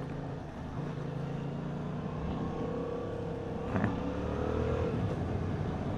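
Yamaha MT-07's 689 cc parallel-twin engine heard from the rider's seat: running steadily, then accelerating with its pitch climbing from about two seconds in, a brief break with a click near four seconds, and a second climb.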